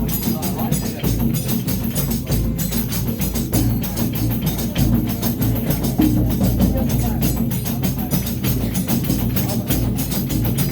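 Reisado folk music, carried by percussion: a deep drum under dense, fast clicking strokes in a steady rhythm.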